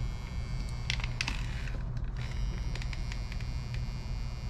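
Soldering iron buzzing steadily with a low hum, with a few brief crackles about a second in as the wire is soldered.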